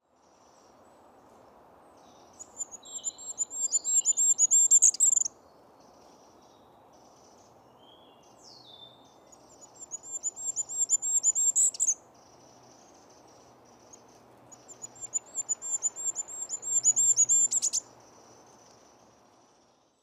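Goldcrest singing three times: each song is a very high, thin run of fast repeated notes that grows louder and ends in a quick flourish. A faint steady hiss runs underneath.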